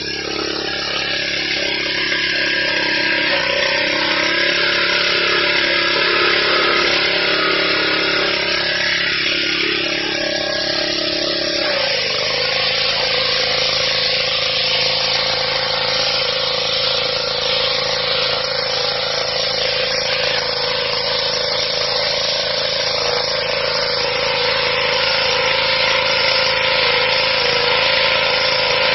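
Petrol-engined pressure washer running steadily while its lance sprays a high-pressure water jet onto stone paving, a constant hiss over the engine. About twelve seconds in the engine note drops slightly and holds at the lower pitch.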